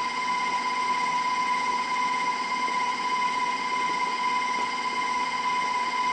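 KitchenAid tilt-head stand mixer's motor running at a raised speed, a steady, even whine as the flat beater whips a lemon custard batter in the steel bowl.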